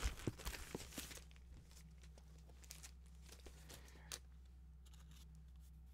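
Cardboard and paper packaging rustling and crinkling as it is handled, dying away after about a second. Then a quiet stretch with a steady low hum and a single sharp click about four seconds in.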